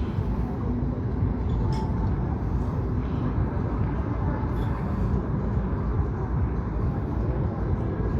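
Steady low rumbling outdoor background noise with faint voices mixed in.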